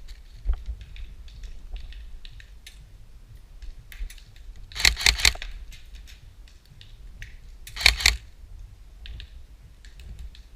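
Airsoft guns firing: a quick string of sharp shots about five seconds in and a pair more near eight seconds, with fainter scattered shots and clicks in between.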